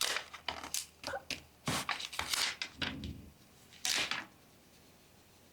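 Hands handling the inside of an opened laptop: irregular light clicks, taps and scratchy rustles, as if lifting a cover or pad off the internal components, with a few longer rustles partway through.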